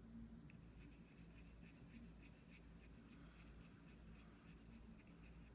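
Faint, quick scratching of a plastic spatula rubbed over a reagent well of a bedside ABO test card (Diagast Safety Card AB), mixing a drop of blood into the reagent.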